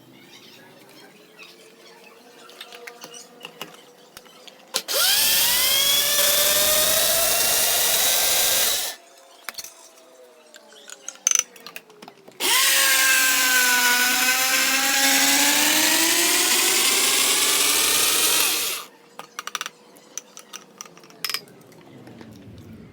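Electric motor of a kitchen appliance running in two bursts, the first about four seconds long and the second about six, with a whirring pitch that dips as it takes up load and then climbs back. A few light clicks follow.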